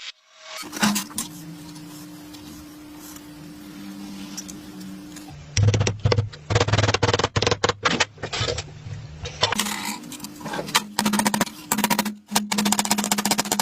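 Workshop sounds in short edited sections: a steady hum at first, then rapid runs of sharp clicking and tapping on metal parts.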